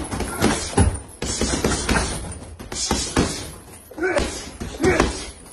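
Gloved punches thudding into a Ringside leather heavy bag in quick, irregular combinations, several hits a second at times, with short pauses between flurries.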